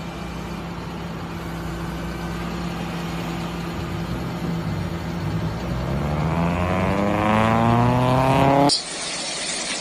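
A vehicle engine running steadily at a low pitch, then rising in pitch over the last couple of seconds before cutting off suddenly.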